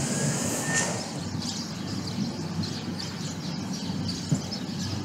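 Small birds chirping again and again over a steady outdoor city background noise, starting about a second in, with one brief knock near the end.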